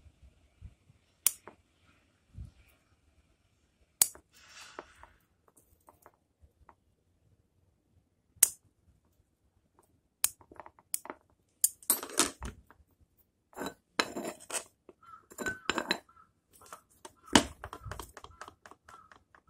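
Hard objects clicking and clinking as bonsai tools and a pot are handled, with a brief rustle: a few separate sharp clicks in the first half, then a dense run of clicks and clinks through the second half.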